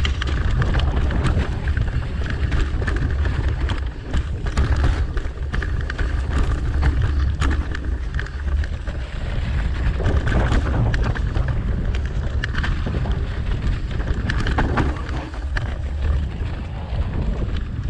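Wind buffeting the microphone of a camera on a mountain bike riding down a dirt singletrack, with tyre noise over dirt and dry leaves and frequent sharp clicks and rattles as the bike goes over bumps.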